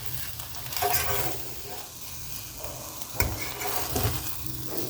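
Food sizzling as it fries in a pan, with a utensil scraping and knocking against the pan a few times, the sharpest knock a little past three seconds in.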